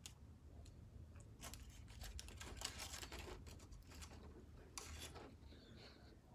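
Faint scraping and rustling of a metal utensil in a foil takeaway food container, in a few short bouts in the middle, over quiet room tone.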